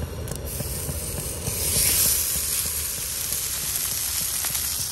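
A raw A5 wagyu beef patty hitting a hot cast-iron griddle pan and sizzling. The sizzle starts about a second and a half in, is loudest just after, then settles into a steady sizzle over a constant low rumble.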